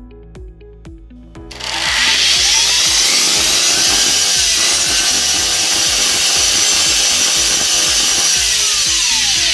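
Handheld electric plunge router switched on about a second and a half in and running loud, its pitch wavering, then starting to wind down at the very end. The router fails to come up to full speed and sparks heavily, a motor fault.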